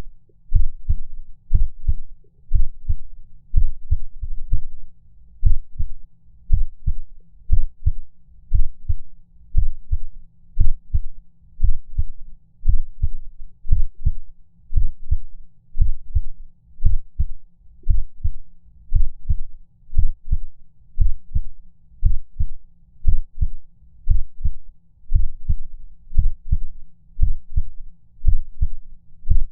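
Heartbeat sound effect of a heart skipping beats: low, paired lub-dub thumps, about one beat a second.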